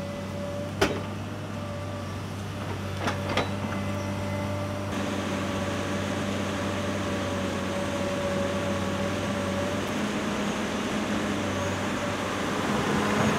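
Excavator engine running steadily under load with a steady whine over it as the bucket digs into clay soil. Sharp knocks about a second in and twice more around three seconds in, the first the loudest.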